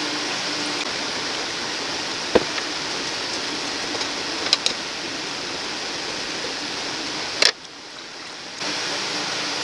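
Steady hiss of vegetables cooking in a stainless-steel pot, with a few sharp knocks of a wooden spatula against the pot during stirring. A louder click comes near the end, after which the hiss drops out for about a second and returns.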